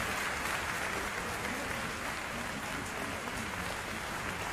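Steady applause from a sparse arena crowd, a scattered patter of clapping.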